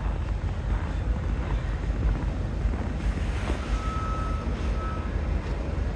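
Wind buffeting the microphone as a steady low rumble, with a short, steady high-pitched tone a little past the middle.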